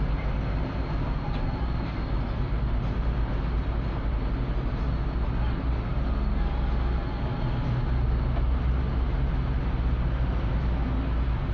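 Motor vehicle running on the road: a steady low engine and road rumble.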